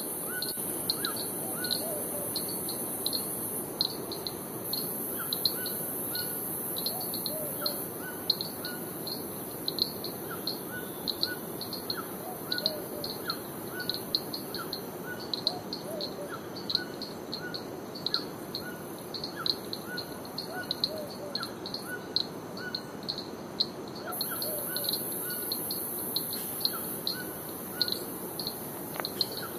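Forest birds calling: one short high chirp repeated evenly two or three times a second, with scattered lower calls mixed in, over a steady background hiss.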